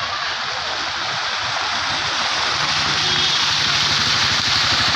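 Floodwater rushing across a washed-out road, a steady, loud rush that grows a little louder. A low steady hum joins about halfway through.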